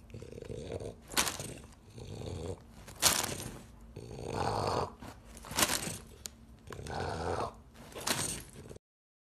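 French bulldog breathing noisily: a low snuffle followed by a sharp, hissy snort, repeating about every two and a half seconds, then the sound cuts off just before the end.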